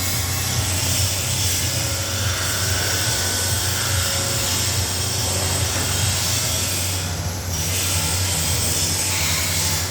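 Workshop machinery running steadily: a strong low hum under a broad hiss, with a short break about seven seconds in.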